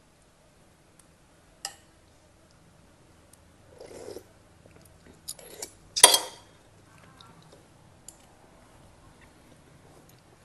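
Close-miked eating with a spoon and fork from a bowl of sour soup: scattered light clicks of the utensils and soft chewing, with one short louder sound about six seconds in.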